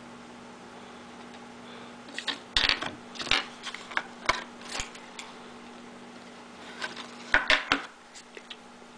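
Sharp clicks, taps and rustles of an iPod box's clear plastic tray and cardboard insert being handled, in one run of about three seconds and a shorter cluster near the end, over a steady low hum.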